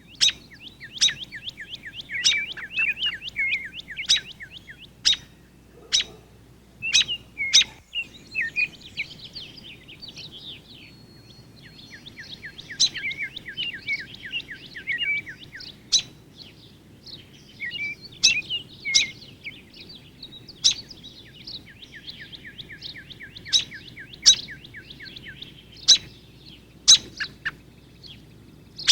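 Backyard songbirds singing and calling: rapid trills of short down-slurred notes, broken again and again by loud, sharp chip notes.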